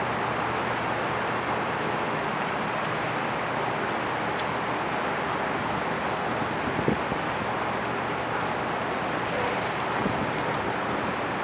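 Steady waterfront background noise: a rushing hiss with a low steady hum underneath, and a single short knock about seven seconds in.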